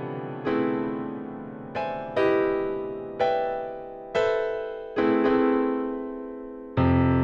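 Piano chords played slowly, each struck and left to ring and fade before the next, about seven or eight in all, with a fuller, deeper chord near the end.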